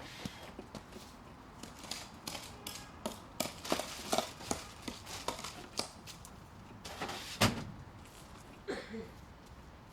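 Irregular knocks and clatter of equipment being handled, with one loud thump about seven and a half seconds in.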